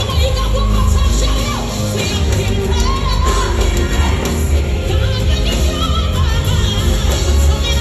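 Live gospel band playing, with drum kit, piano, electric guitar and heavy bass, under singers' voices.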